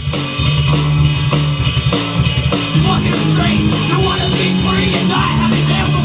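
Recorded punk rock track playing back loud and steady: a full-band mix of hard-hit drums, a bass line and guitars.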